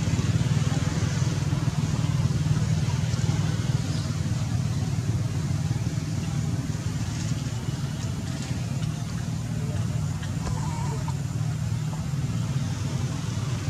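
A steady low motor hum, even throughout, with faint scattered ticks above it.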